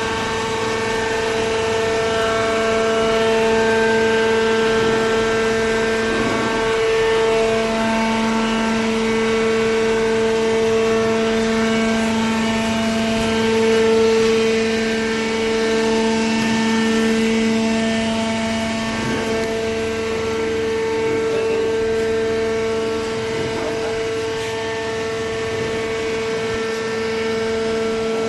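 Hydraulic baler running, its electric motor and hydraulic pump giving a steady, loud whine made of several held tones; a second, lower tone joins about a quarter of the way through.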